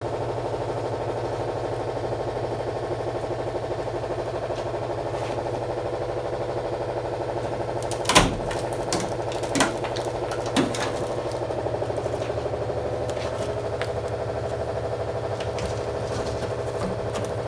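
A machine in a workshop running steadily with a fast, even pulse. A few sharp knocks come about eight to eleven seconds in.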